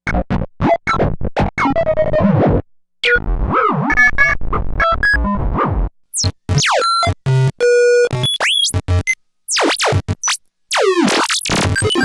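Robot 'beep boop' sound effect played on an analog synthesizer, run through a low-pass filter and distortion: a busy string of short blips, chirps and quick pitch glides up and down, broken by brief gaps, with a fast stuttering run of tones about eight seconds in.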